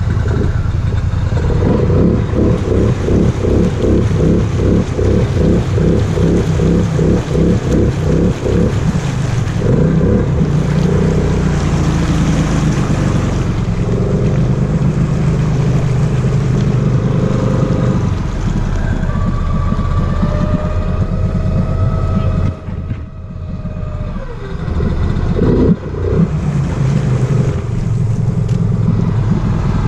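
Polaris Sportsman Highlifter 850 ATV's twin-cylinder engine running at high revs with the tires spinning in deep mud and water, stuck and trying to dig out. It pulses rhythmically for the first several seconds, whines up in pitch later, drops off briefly about three quarters of the way through, then revs again.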